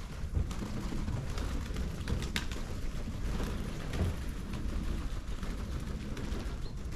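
Domestic pigeons flapping their wings: a fluttering clatter of wingbeats with scattered sharp clicks, over a steady low rumble.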